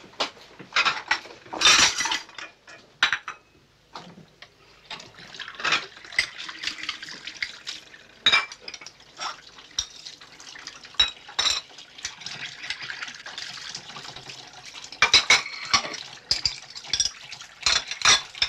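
Water running from a tap into a sink, with repeated clinks and knocks of crockery being handled against it. The knocks are loudest about two seconds in and again in the last few seconds, with the water running steadily in between.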